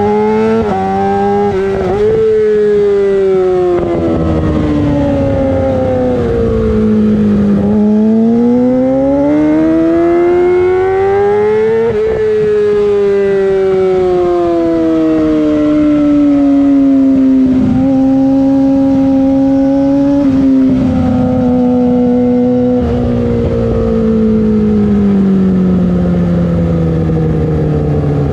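Yamaha R6 inline-four engine through a LeoVince full exhaust system, heard onboard. It rises and falls in pitch as the bike accelerates and slows, with brief sharp breaks at gear changes.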